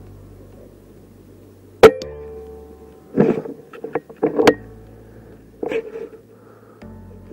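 A single sharp shot from a PCP air rifle about two seconds in, with a brief ring after it. A few shorter bursts of mechanical clicking and rattling follow over the next few seconds.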